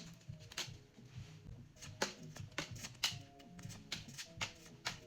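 Pokémon trading cards being flipped and slid through by hand, giving irregular soft card clicks and slaps, over quiet background music.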